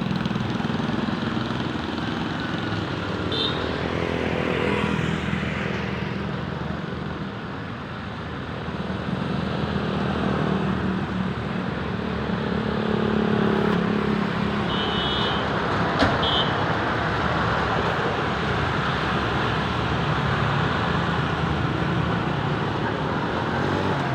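Steady road traffic passing by, with engine hum and tyre noise. Short high-pitched horn beeps sound about 3 s in, and again in a quick cluster around the middle, with one sharp click among them.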